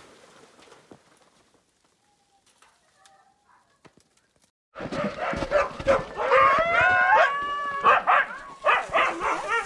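About five seconds in, a pack of sled huskies starts up loud and all at once, several dogs howling with rising and falling pitch over short yelps and barks. This is the excited din of sled dogs that sense it is time to run.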